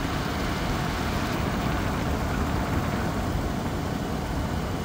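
10,000 BTU portable air conditioner running with its fan on high, a steady rush of cold air from its front vent close by.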